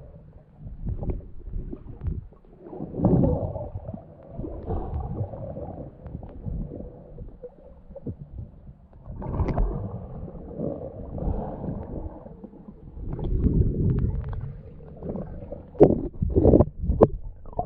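Muffled water gurgling and rumbling in slow swells, the dull sound of a camera underwater. A few sharp knocks come near the end.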